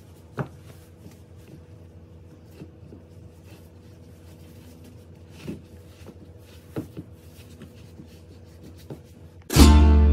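Quiet indoor room tone with a steady low hum and scattered light clicks and taps. Near the end, loud plucked-string music cuts in suddenly.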